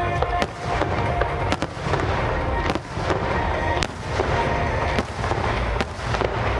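Fireworks display: sharp bangs about once a second over a continuous crackle and low rumble.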